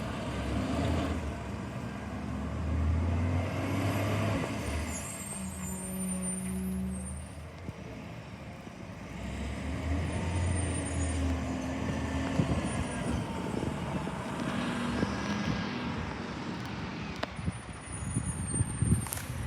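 Recycling collection truck's engine running, rising twice and easing off between as the truck pulls along and stops.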